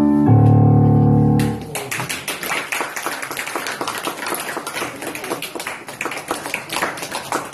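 The closing chord of a flute ensemble with its accompaniment is held and ends about a second and a half in. Audience applause follows and continues.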